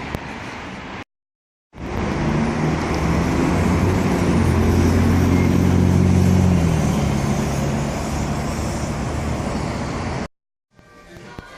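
Road traffic noise, with a heavy vehicle's engine droning loudly and then dropping in pitch and fading about seven seconds in. A short silence breaks it about a second in.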